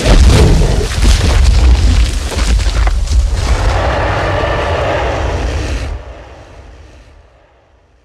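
Custom King Kong roar sound effect: a deep giant-ape monster roar, heavy in the low end, that starts abruptly, holds for about six seconds, then fades away near the end.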